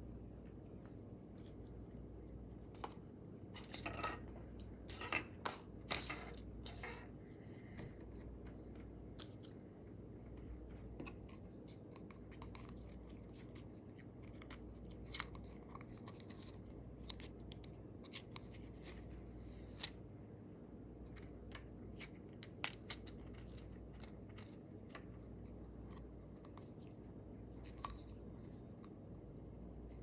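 Quiet handling sounds: a paper cleaning wipe rubbing on an Apple Watch Ultra's screen and a clear hard plastic watch case being handled, with rustling and scattered small, sharp plastic clicks.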